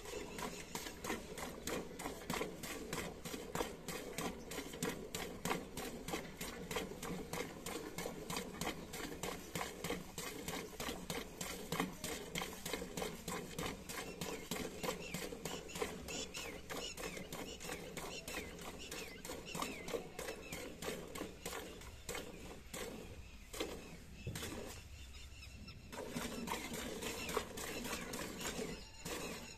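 Milk squirting into a pail as a buffalo is milked by hand, a steady rhythm of squirts a few a second, with a short pause about three-quarters of the way through.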